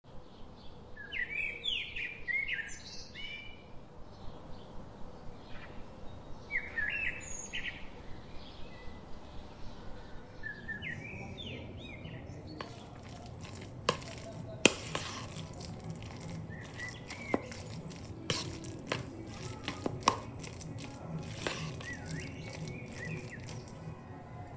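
Bird chirps in short bursts through the first half. Then a spoon scrapes through mashed potato and flour and knocks sharply against the mixing bowl every second or two.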